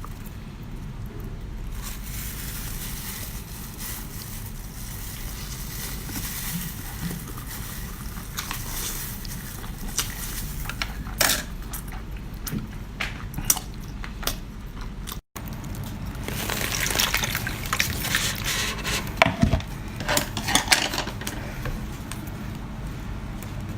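A person eating spicy seafood with close, wet mouth sounds: squishing, slurping and crackling chews with scattered sharp clicks. The sound is busier from about 16 to 21 seconds in, and there is a brief dropout about 15 seconds in.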